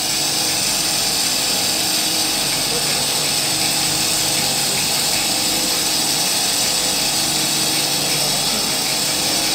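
Steady hiss of a glassworking torch flame, with a constant mechanical hum beneath it, as a glass rod is heated in the flame to soften and bulge its tip.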